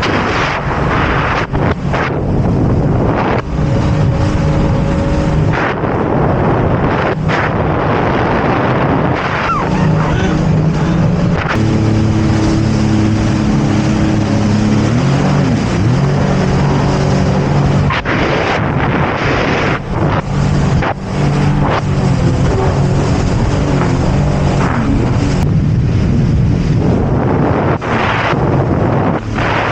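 Jet ski engine running steadily while riding, with wind buffeting the microphone; the engine pitch changes and glides around the middle before settling again.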